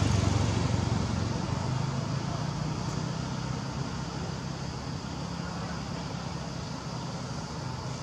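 A motor vehicle's low engine hum over steady outdoor background noise, fading over the first few seconds and then holding level.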